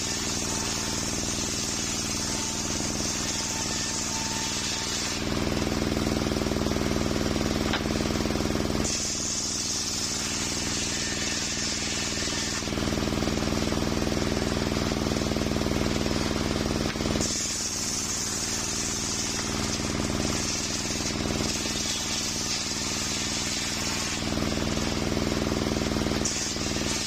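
Large circular sawmill blade running and cutting coconut wood, a steady drone from the saw's drive with a high sawing hiss that comes and goes several times as the log is fed through.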